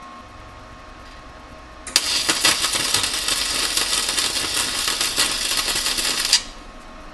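Electric welding arc crackling in one continuous run of about four and a half seconds, starting abruptly about two seconds in and cutting off suddenly, as the exhaust pipe is welded to the new muffler and V-band.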